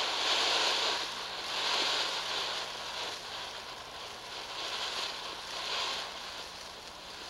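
Ground fountain firework spraying sparks with a hiss that swells and eases in uneven pulses and gradually dies down.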